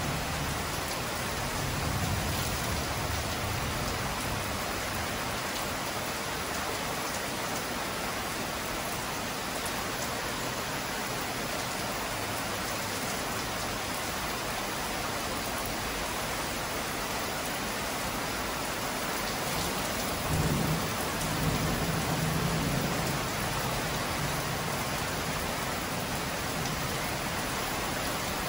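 Heavy rain pouring steadily onto grass, trees and a tiled patio, an even hiss, with a brief low rumble about two-thirds of the way through.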